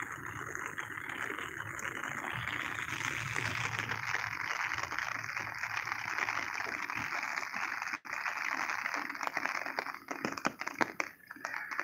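Rain falling on an umbrella held overhead, a steady dense hiss of drops. In the last couple of seconds it breaks up into scattered separate taps.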